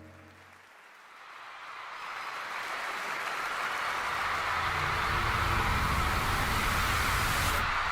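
The last sung note fades out, then an arena crowd cheers and applauds, swelling over several seconds. A deep rumble joins about halfway.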